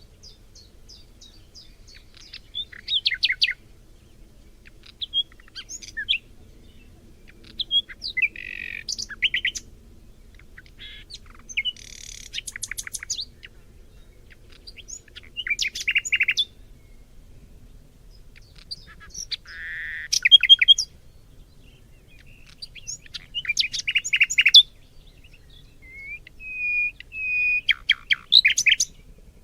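Birds singing in a forest: short, high chirping phrases and trills come every second or two, some louder and nearer than others, over a faint low background rumble.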